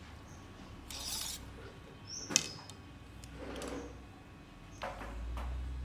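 A few clicks and rustles of arrows being handled against a recurve bow, one sharp click about two seconds in louder than the rest; small birds chirp now and then.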